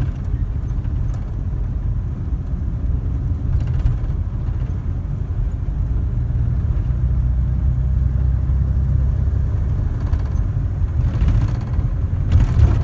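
Steady low rumble of a 1946 Hudson Commodore 6 under way, heard from inside the cabin: its straight-six engine running and road noise at a steady cruise, with a couple of brief faint knocks.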